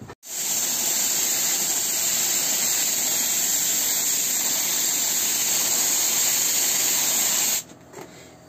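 Contact adhesive being sprayed from a spray gun onto seat foam: a loud, steady hiss that stops abruptly near the end.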